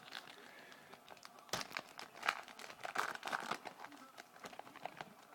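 Crinkling and tearing of a trading-card pack's wrapper being opened, with cards handled. There are irregular crackles and clicks, the busiest stretch in the middle.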